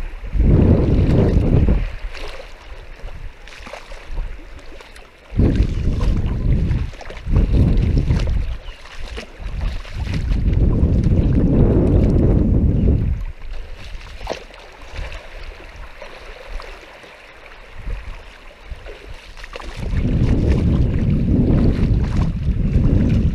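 Wind buffeting the microphone in several strong gusts, a low rumble that swells and drops away, with quieter stretches of shallow water sloshing between.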